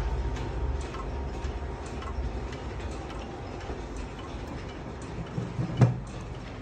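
Odo 62/10 pendulum wall clock ticking steadily, about two ticks a second, while the low ringing of its chime dies away in the first second. A single dull thump near the end is the loudest sound.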